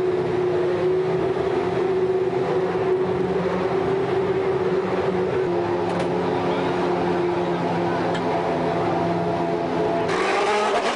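Formula One car engine idling steadily in the pits, an even multi-tone hum. About ten seconds in a rougher, noisier engine sound takes over.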